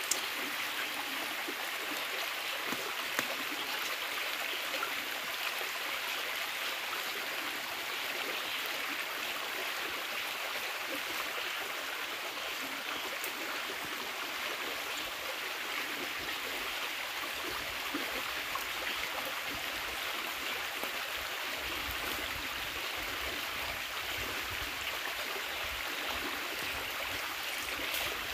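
River water flowing over rocks, a steady, even rush of water.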